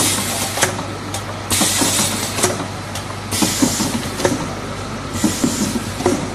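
Automatic turntable cartoning machine running: pneumatic air hissing in bursts about a second long, every couple of seconds, among sharp clicks and knocks of the indexing table and carton-handling stations, over a steady low hum.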